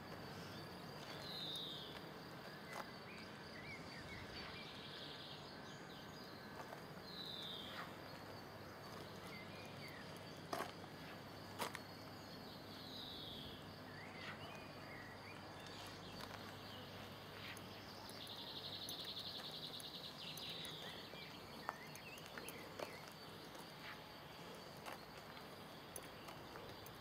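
Faint outdoor ambience with animal calls: a short, falling high call repeats about every six seconds, with a longer rhythmic trill a little past the middle. A few sharp clicks are scattered through it.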